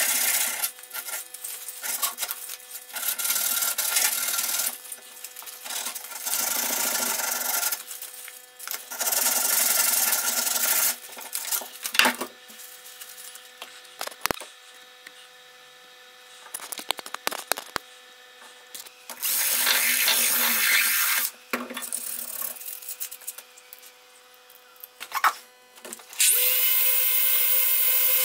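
Sandpaper rubbed by hand over a rusty steel axe head, in bursts of a second or two with pauses between, and a few sharp clicks. Near the end an electric random orbital sander starts and runs steadily on the axe head.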